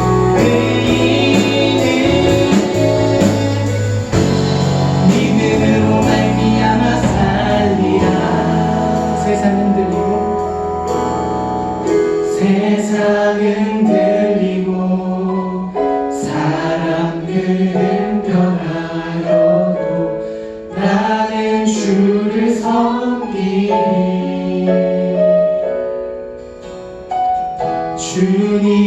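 Church praise band playing a worship song with voices singing; about twelve seconds in the bass and drums drop out, leaving a softer passage of sustained notes.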